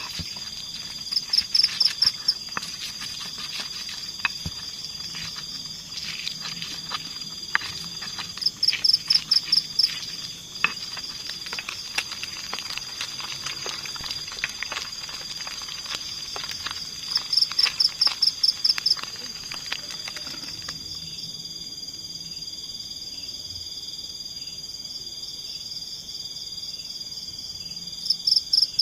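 Forest insect chorus: a steady high-pitched drone, with a louder rapid pulsed trill about a second long that comes four times, roughly every eight to nine seconds. Scattered light clicks sound over the first two-thirds.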